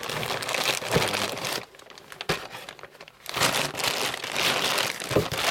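Packaging crinkling and rustling as items are handled and pulled out of a shipping box, in two spells with a short lull between.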